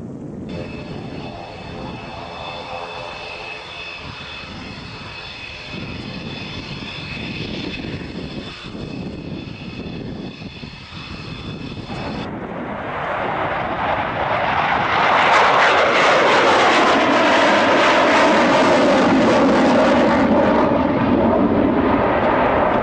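Single turbofan jet engine of a Mirage 2000 whining steadily during its takeoff roll; the whine cuts off suddenly about halfway through. Then a loud rush of the engine in afterburner builds as the jet takes off and climbs past, with a falling sweep in the sound as it goes by.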